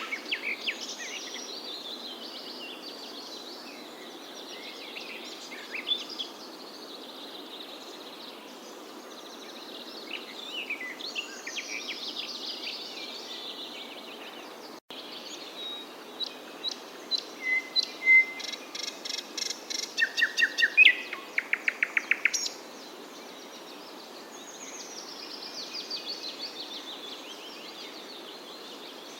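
Several songbirds chirping and singing over a steady background hiss. A run of loud, rapidly repeated chirps comes in the middle.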